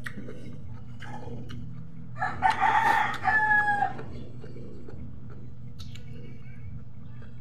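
A rooster crows once, about two seconds in, lasting under two seconds and ending on a held note, over a steady low hum.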